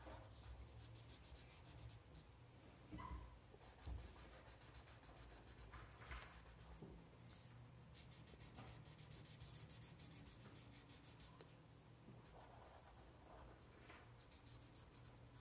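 Felt-tip marker scribbling back and forth on paper, faint rapid strokes in runs, with a couple of soft thumps about three and four seconds in.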